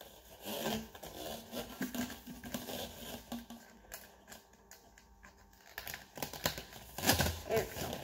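Corrugated plastic pop tubes being bent and their ends pushed together into rings, the ribbed plastic crackling and clicking irregularly, loudest about seven seconds in.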